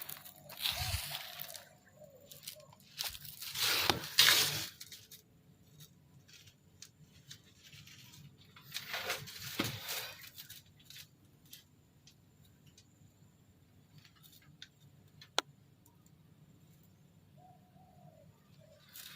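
A few short bursts of scraping, rustling handling noise, three of them over the first ten seconds, then faint scattered ticks and one sharp click about fifteen seconds in.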